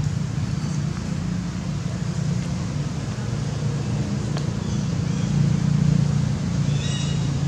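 Steady low rumble of road traffic, growing a little louder a few seconds in, with a few faint high chirps near the end.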